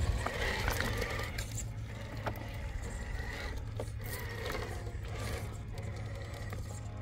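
RC rock crawlers' electric motors and geared drivetrains whining as they climb, the whine coming and going with the throttle. Scattered clicks and scrapes come from the tires and chassis on rock.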